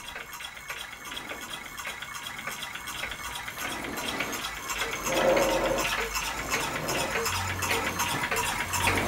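Small solenoid beam engine running, its open contact breaker and solenoid plunger making a quiet, even metallic ticking in rhythm with the flywheel. It gets louder about halfway through.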